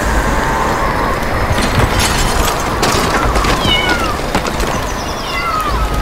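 Short animal cries falling in pitch, a few about halfway through and again near the end, over a steady rushing background with a low rumble and a few sharp knocks.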